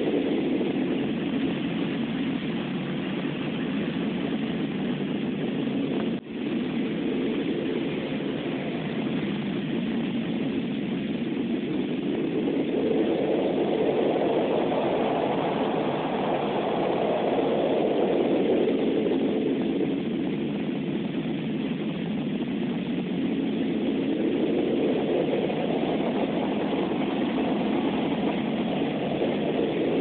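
Low, rumbling blizzard wind, a steady rush of noise that swells in long gusts about halfway through and again near the end. It cuts out for an instant about six seconds in.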